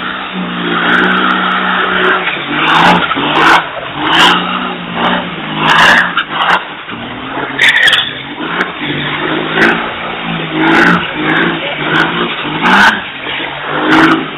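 Diesel engine of a rat rod revving up and falling back over and over during a burnout, with the spinning rear tyres skidding and squealing on the pavement.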